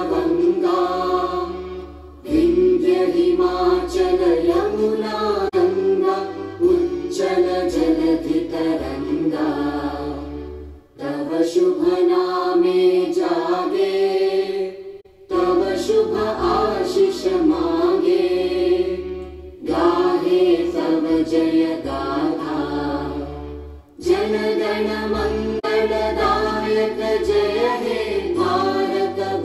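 A song: singing voices over an instrumental backing, in phrases broken by a few short pauses.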